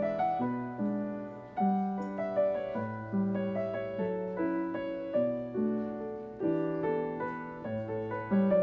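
Background piano music: gentle chords and melody notes struck and left to fade.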